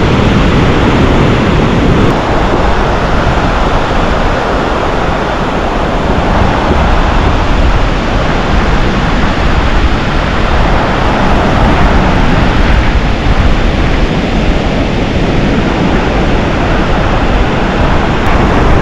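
Wind rushing over the microphone with a rumbling low buffeting, over the steady wash of surf breaking on the beach.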